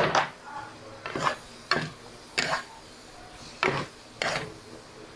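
Wooden spatula stirring seasoned pork in a black nonstick pot: short scrapes against the pan, about one every half second to second.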